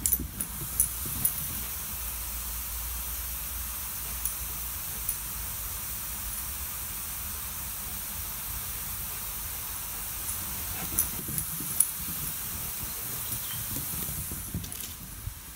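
Garden sprinkler spraying with a steady hiss, while a greyhound cross gallops over the wet lawn, its paws thudding irregularly. A few sharp clicks stand out near the start and again about eleven seconds in.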